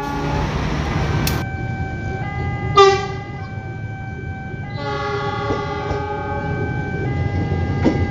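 Train horn sounding several times over the steady rumble of an approaching train: a horn chord fading out in the opening half-second, a short loud toot about three seconds in, and a longer blast from about five to seven seconds in.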